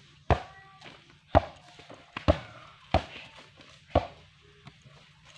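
A basketball bouncing on hard-packed dirt: sharp knocks about once a second, six in all.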